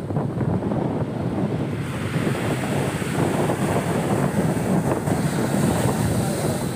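Surf breaking and washing over the rocks of a stone breakwater, with wind noise on the microphone.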